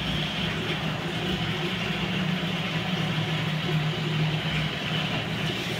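Bathtub faucet running steadily into a plastic bucket, filling it with water: a continuous rushing noise with a low hum underneath.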